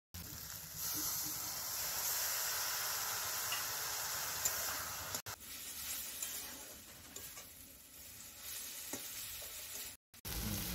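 Onion, spices and green peas sizzling as they fry in a metal karahi while being stirred with a metal spatula. The sizzle is steady and louder for the first half, then drops to a softer frying hiss about five seconds in.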